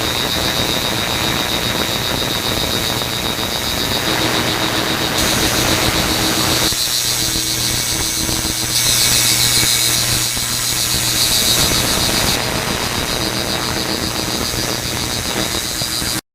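Ultrasonic cleaning tank running: a steady hissing buzz with a high whine and a low hum from the transducers driving the cleaning bath. Its tone shifts abruptly a few times, and it cuts off right at the end.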